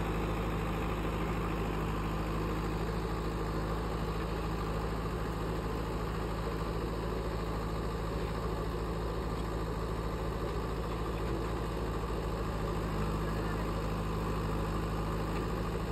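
Heavy truck engine idling steadily: an even low hum that holds the same pitch throughout.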